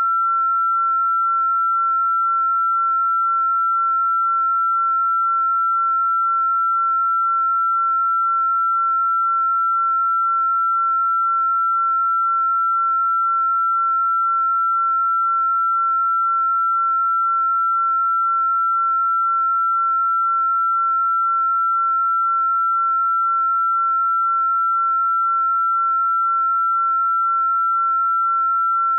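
A single electronically generated pure sine-wave tone held at one unchanging pitch, with no rise, fall or break: a 'healing frequency' tone played for sound therapy.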